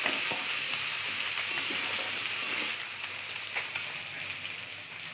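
Onion and potato pieces sizzling in hot oil in a steel wok, stirred with a spatula that clicks and scrapes against the pan. The sizzle eases off a little about three seconds in.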